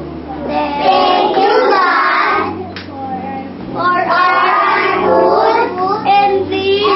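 Young children singing together, with music playing underneath.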